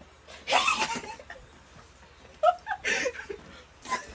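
A young woman laughing and squealing while being tickled, in short loud outbursts with pauses between them.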